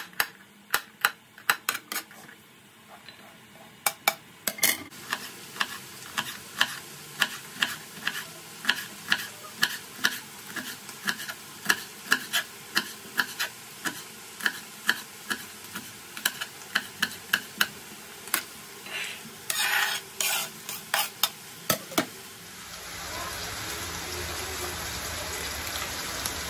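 Minced meat frying in butter in a pan, sizzling as it browns, while a utensil stirs it and knocks against the pan about twice a second. Near the end the sizzling grows louder and steadier, with fewer knocks.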